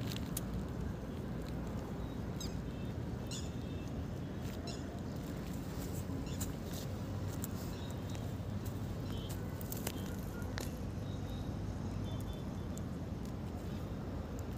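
Open-air ambience: a steady low wind rumble on the microphone, with short high bird chirps scattered through it.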